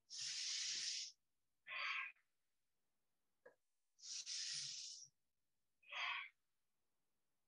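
A woman's slow, deliberate yoga breathing, heard close to the microphone. There are two cycles about four seconds apart, each a longer airy breath followed by a shorter one.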